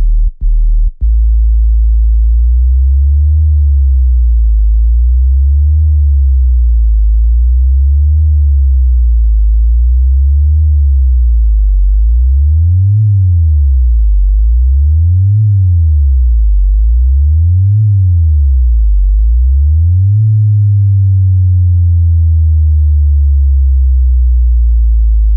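Very loud synthesized sub-bass sine tones for a bass speaker test. They stutter on and off a few times in the first second, then hold, with the pitch sweeping up and down over and over, faster in the middle, and a long falling glide near the end.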